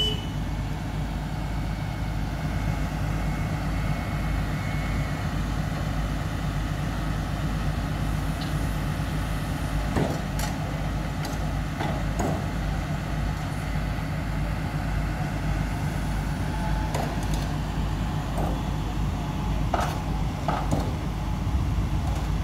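Diesel engines of heavy construction machinery, crawler cranes and an excavator, running with a steady low drone. A few short sharp knocks come in the second half.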